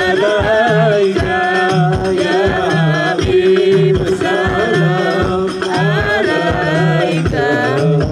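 Sholawat, Islamic devotional songs praising the Prophet, sung live through a loudspeaker system: a wavering sung melody carried over a steady drum beat.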